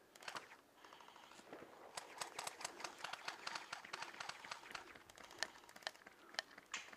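Airsoft guns firing: a quiet, irregular clatter of sharp clicks and pops, sparse at first and dense from about two seconds in.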